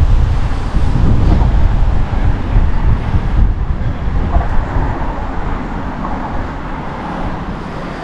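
Wind buffeting the microphone of a bicycle being ridden into a headwind, mixed with road traffic noise. The rumble is heavy and low, and it eases off over the last few seconds.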